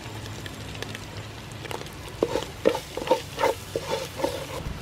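Chili paste and curry powder frying in oil in an aluminium pot while a wooden spoon stirs it. From about two seconds in, a quick run of short animal calls, about four a second, is louder than the frying.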